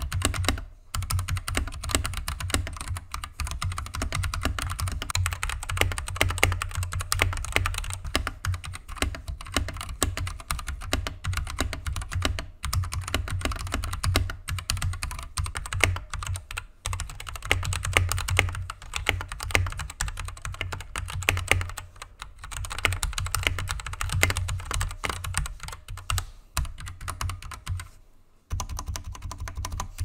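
Typing on Royal Kludge RK100 mechanical keyboards, standard and RGB versions, with Gateron switches and PBT keycaps: a fast, steady run of key clacks with a few brief pauses. This is a typing sound test.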